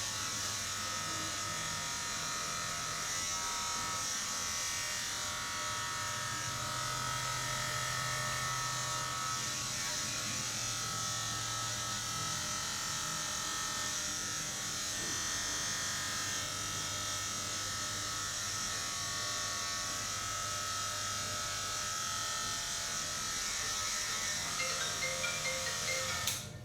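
A small handheld electric appliance buzzing steadily, of the kind barbers use, such as a clipper, trimmer or massager. It cuts off abruptly near the end.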